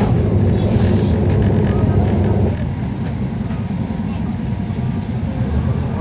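Passenger train running on the rails, heard from aboard: a steady low rumble of the carriage, easing somewhat about two and a half seconds in, with passengers' voices in the background.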